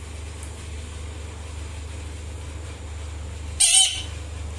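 Indian ringneck parrot giving one short, loud, harsh screech about three and a half seconds in.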